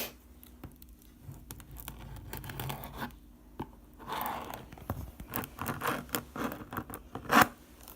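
A dull knife scraping and picking at a plastic wrapper on a box, with irregular scratching and crinkling and a louder scrape near the end.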